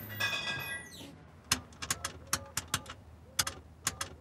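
A payphone's push-button keypad being dialled: a run of quick button presses, about ten, each a sharp click with a short beep, in two bursts. It is preceded by a brief squeak in the first second.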